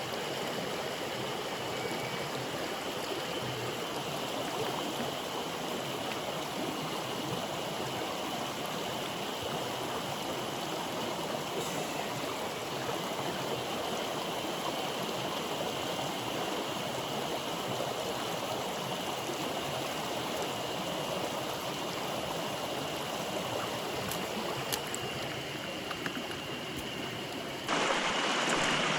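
Mountain stream water rushing and splashing in a steady wash. About a second before the end the sound jumps abruptly louder and brighter.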